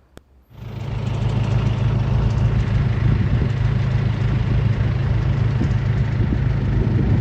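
Engine running steadily with a low hum, starting abruptly about half a second in.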